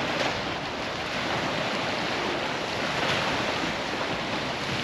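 Steady rushing of a stiff breeze blowing over the microphone beside choppy lake water.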